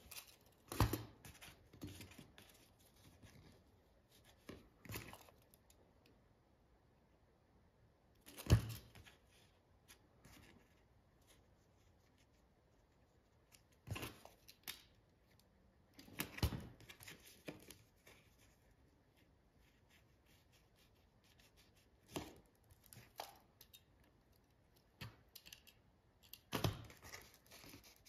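Scattered handling sounds as silver conchos and leather strips are shifted and set down on a workbench: short knocks and rustles every few seconds, the sharpest about a third of the way through.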